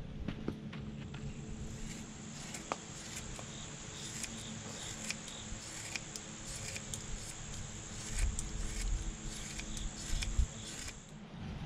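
Scissors snipping fiberglass cloth in short, repeated cuts, over a steady high-pitched insect drone. A few dull bumps near the end.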